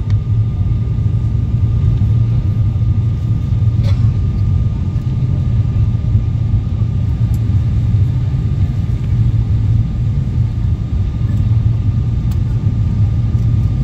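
Airliner cabin noise on final approach with flaps down: a steady low rumble of engines and airflow heard from inside the cabin, with a thin, constant high whine over it.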